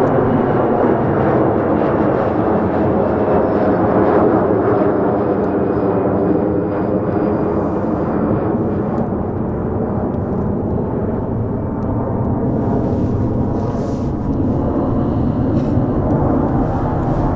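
Boeing 737-500's CFM56 turbofan engines at departure power: a steady jet roar, with faint whining tones slowly falling in pitch as the airliner moves away.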